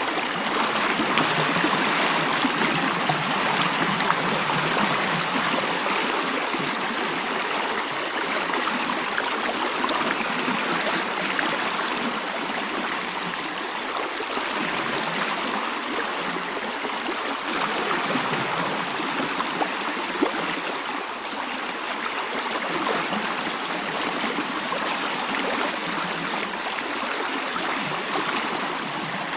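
Mountain stream flowing, a steady rush of water that swells and eases slightly in level.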